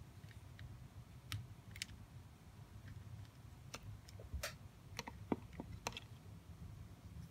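Small sharp clicks and taps of jumper wire ends being pushed into a plastic solderless breadboard, a scattered run of about a dozen that comes thickest in the second half.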